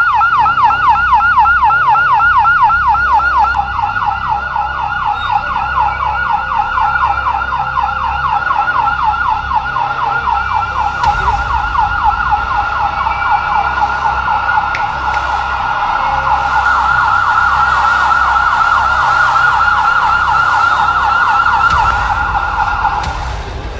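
Electronic yelp siren of a rescue pickup truck, sweeping rapidly up and down in pitch several times a second over a low rumble; it cuts off near the end.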